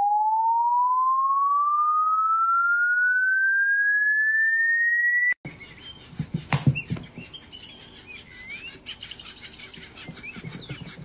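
A pure electronic tone slides steadily upward in pitch, a comedic meme sound effect, and cuts off abruptly about five seconds in. After it come a knock and soft chirps and bumps from a bird-shaped cat toy being pounced on by a kitten on a hard floor.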